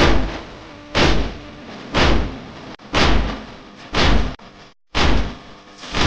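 Matam: heavy, evenly paced chest-beating strikes of a noha recording, about one beat a second, each a deep thump that dies away before the next, with a faint held tone between beats.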